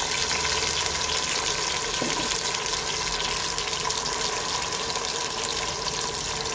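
Ground tomato, green chilli and onion paste sizzling steadily in hot oil in a pressure-cooker pot, just added to be fried down as a masala base.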